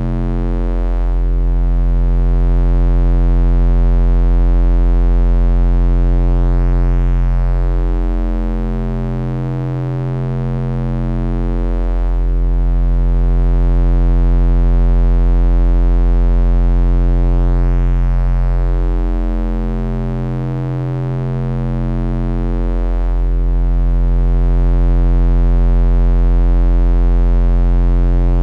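Synthesized bass drone: deep, steady tones with a stack of overtones. It slowly swells and eases in loudness, about every ten seconds or so.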